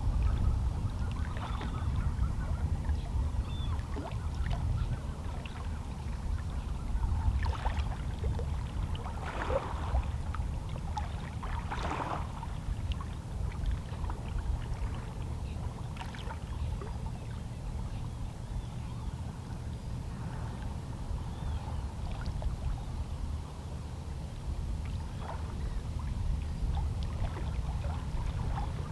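Small sea waves lapping against shoreline rocks: a steady low wash with occasional small splashes.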